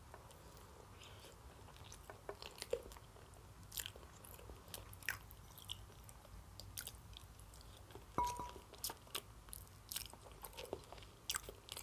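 A person chewing a mouthful of roasted potato with the mouth closed: faint, irregular mouth clicks and smacks.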